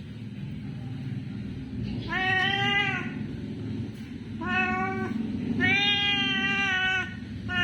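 Domestic cat meowing for food, three meows with the last one the longest, over low steady background noise.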